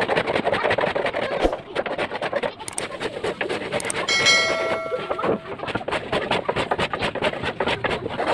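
Hand plane worked back and forth along a wooden board, its blade scraping and shaving the wood in quick repeated strokes. About four seconds in, a short electronic chime rings for about a second.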